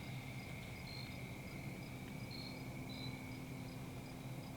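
Insects chirring steadily: a continuous high drone with short chirps repeating at an even pace above it, over a low steady hum.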